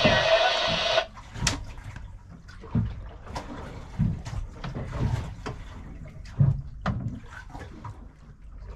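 Water splashing and sloshing at the side of a small boat, with irregular knocks and thumps on the hull and gunwale as a hooked fish is brought alongside. Background music cuts out about a second in and comes back at the very end.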